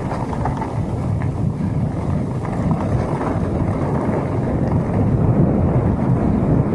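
Wind buffeting the microphone of a camera on a mountain bike rolling down a dirt forest trail, mixed with the low rumble of the tyres over the ground; a steady noise without breaks.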